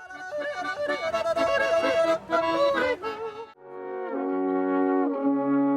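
Swiss folk music: a fast tune of quick, bending notes for about three and a half seconds, then alphorns sounding long held notes together in harmony.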